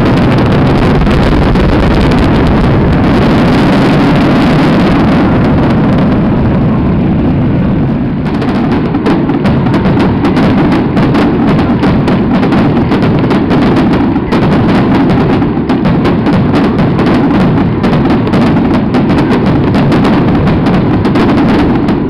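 Fireworks finale barrage: a dense, continuous rumble of overlapping shell bursts. From about eight seconds in it turns into rapid, closely spaced bangs and crackles.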